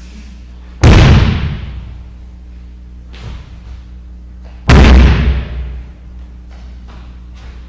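A 750 lb tractor tire falling flat onto a rubber gym floor twice, about four seconds apart. Each fall is a heavy slam that echoes through the big hall and dies away over about a second.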